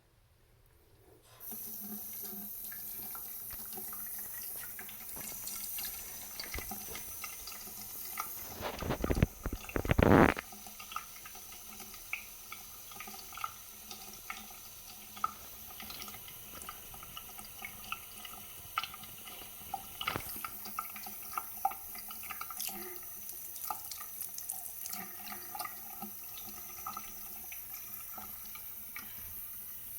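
Bathroom sink faucet turned on about a second and a half in, then running a thin, steady stream into the basin, its flow badly reduced, which the owner suspects is low water pressure. A louder bump or rush comes around nine to ten seconds in.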